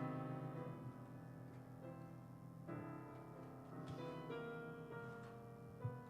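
Quiet piano music: held chords, with new chords struck a few times.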